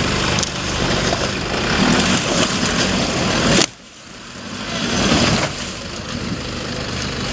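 Nissan Patrol SUV engine running under load as the truck crawls through a water-filled rut. The sound breaks off abruptly a little over a third of the way in, then builds up again to a louder rev about five seconds in.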